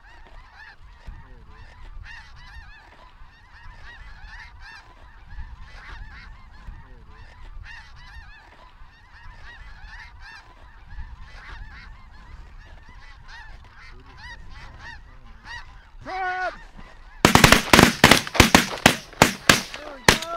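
A large flock of snow geese calling overhead, many overlapping honking calls at once. About 17 seconds in, a rapid volley of loud shotgun blasts breaks out, more than a dozen shots in about three seconds from several guns firing together.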